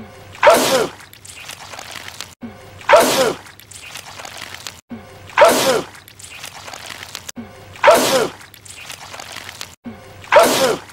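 A man sneezing wetly, the same sneeze repeated five times at even intervals of about two and a half seconds. Each is a loud, sudden burst with a falling cry in the voice, with quieter sound between the sneezes.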